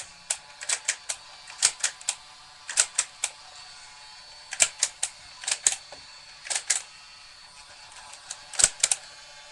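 Nerf blaster's plastic mechanism being worked: about two dozen sharp clicks and snaps in quick clusters of two or three, the loudest near the end.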